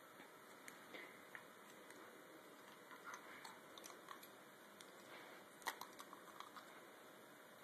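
Faint, scattered clicks and taps over near silence, the loudest a little before six seconds in: a white German Shepherd mouthing and biting at a grooming brush.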